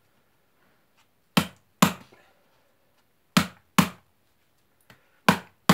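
Folding knife blade stabbed into a taped cardboard box: sharp thuds in pairs about half a second apart, three times over.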